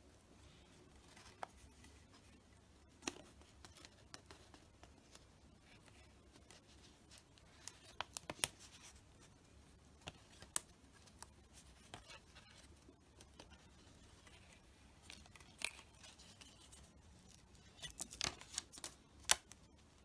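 A strip of vinyl wrap film being handled and pressed down with the fingers: scattered faint crinkles and sharp clicks, with a cluster of louder crackles near the end.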